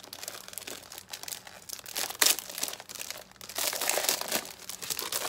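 A clear plastic sleeve crinkling as hands open it and handle the papers inside, in irregular rustles with a sharp crackle about two seconds in.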